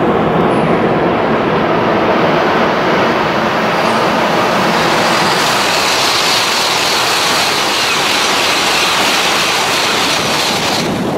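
Tohoku Shinkansen train, a coupled E3-series and E2-series set, passing at high speed: a loud, steady rush of air and wheel-on-rail noise. A higher hiss joins about halfway through, and the sound drops away abruptly at the very end as the last car clears.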